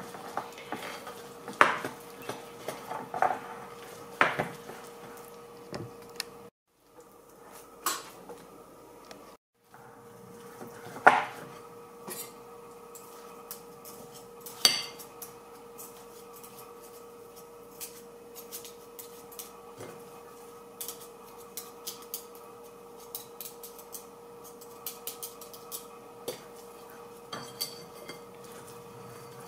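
Metal balloon whisk beating thick teff-flour muffin batter in a glass bowl, its wires clinking and scraping against the glass in irregular taps, with a few louder knocks. A faint steady hum runs underneath, and the sound drops out briefly twice.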